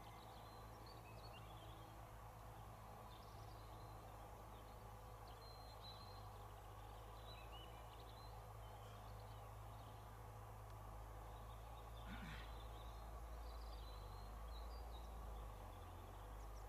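Faint open-air ambience: a steady low rumble with scattered, distant small-bird chirps throughout.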